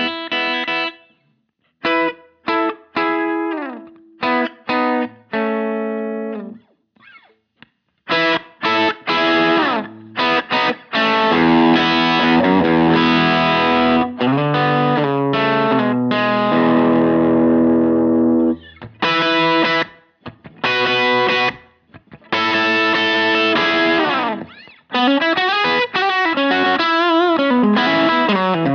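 Electric guitar on its Lambertones Grinder bridge pickup, played through a pedalboard and amp: short chord stabs with gaps, then held, ringing chords, and near the end a quicker single-note line with bends.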